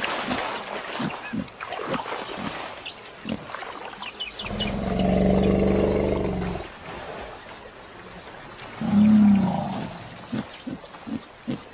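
Short wet clicks and squelches of animals wallowing in mud. About halfway through, a loud, low, growling animal call lasts about two seconds, and a second, shorter one follows near the end.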